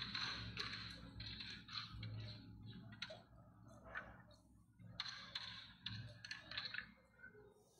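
Scattered clicks of carrom strikers and coins on boards, over a steady low hum.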